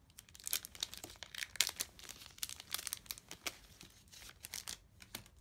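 Crinkling and tearing of a foil Dragon Ball Super Card Game booster pack wrapper being handled and opened: a run of irregular sharp crackles.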